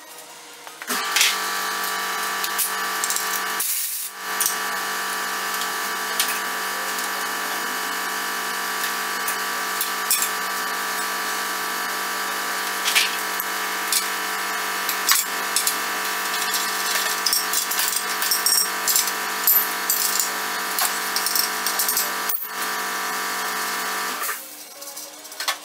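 A handheld power tool's motor running with a steady whine, stopping briefly about four seconds in and cutting off near the end, with light metallic clicks on top, as the exhaust Y-pipe bolts are spun off.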